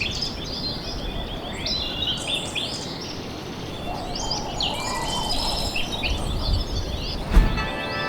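Several birds chirping and trilling over a low wind rumble. A single thump comes near the end, and music with bell-like tones starts just after it.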